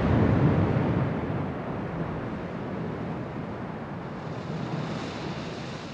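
Small waves washing onto a sandy beach, with wind rustling on the microphone; the rush is loudest in about the first second and then eases.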